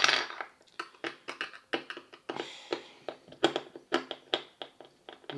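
A screwdriver backing a stuck, partially threaded screw out of a plastic charger casing: a short scrape at the start, then irregular clicks and taps of metal and plastic being handled.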